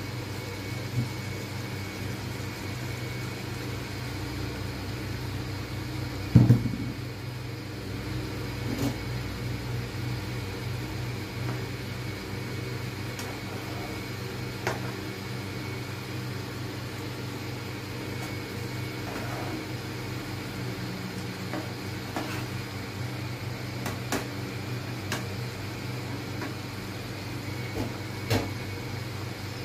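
Steady electric hum of an induction cooktop running under a pan of chicken gravy, with a plastic spatula tapping and scraping the pan now and then and one louder knock about six seconds in.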